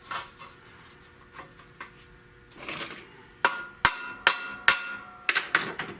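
Light hammer taps on a stamped-steel Buick valve cover, flattening its bent edges. About half a dozen sharp taps come in the second half, each leaving a brief metallic ring.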